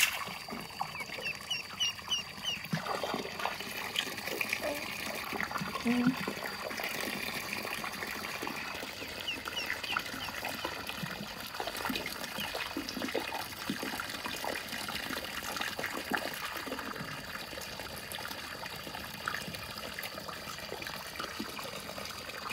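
Water from a garden hose splashing steadily into a shallow tarp-lined pool.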